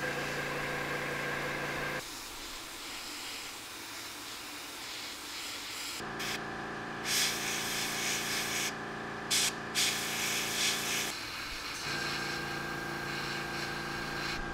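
Airbrush hissing in short bursts as gray paint is sprayed onto a plastic model cockpit. Under it an airbrush compressor hums, stopping and starting a few times.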